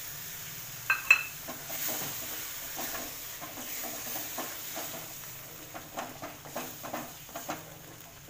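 Wooden spatula stirring and scraping cream into a thick masala gravy in a steel kadhai, the gravy sizzling faintly. Two sharp clinks about a second in, then many short scraping strokes toward the end.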